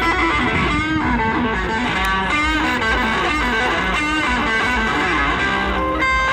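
Electric guitar playing a lead line, with held notes shaken by wide vibrato and bent in pitch.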